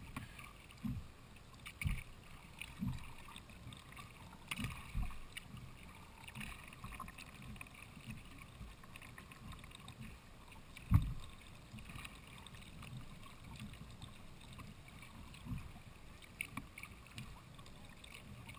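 Kayak paddling on calm water: soft splashes and drips from the paddle blades, with short low thumps, the loudest about eleven seconds in.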